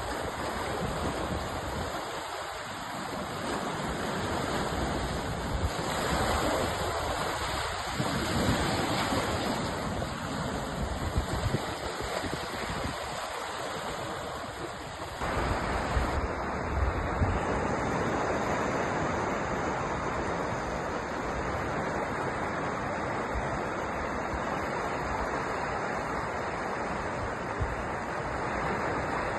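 Sea surf: waves breaking and washing in a continuous rushing wash, with low rumbling swells. The sound changes abruptly about halfway through.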